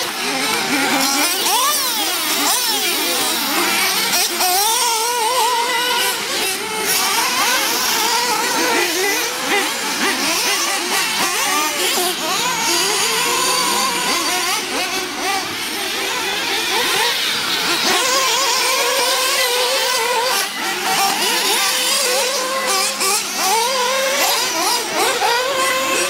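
Several nitro RC off-road race cars' small engines running together, their pitch rising and falling over and over as they accelerate and back off, the notes of different cars overlapping.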